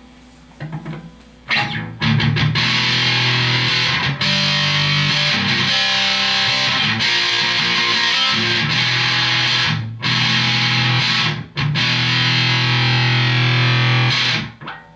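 Electric guitar played through a Big Muff Pi clone fuzz pedal (DBE Siberian): a few quiet notes, then loud, heavily fuzzed sustained chords with a couple of short breaks. The pedal is working again now that its capacitor C3 is soldered in, and it sounds like a proper Big Muff.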